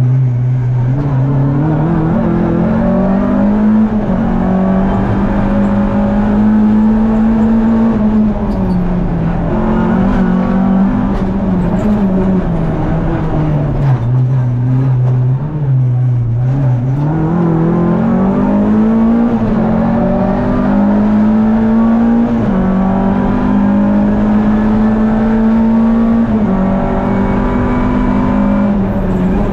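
Renault Clio Sport N3 rally car's 2.0-litre naturally aspirated four-cylinder engine at full stage pace, heard from inside the cabin. The revs climb, hold high with small drops at gear changes, fall away to low revs about halfway through for a slow corner, then pull back up and stay high.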